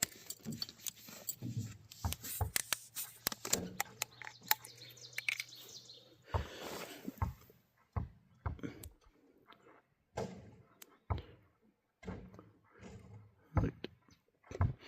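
Irregular crinkles, clicks and light knocks of hands handling plastic wrapping and a new spin-on oil filter.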